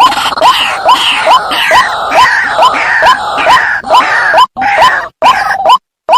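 White-breasted waterhen calling: a run of short rising notes about two or three a second, overlaid by a dense, harsh screeching chorus that breaks off shortly before the end, leaving the single notes.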